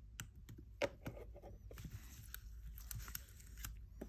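Faint small clicks and ticks of metal tweezers working at the flex-cable connectors on a Samsung A20e's circuit board, with one sharper click about a second in.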